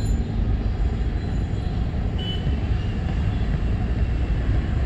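Steady low rumble of a moving road vehicle with engine and road noise.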